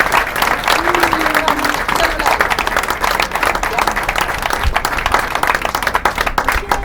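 Audience applauding at the end of a song, with a voice or two calling out in the crowd; the clapping slowly thins toward the end.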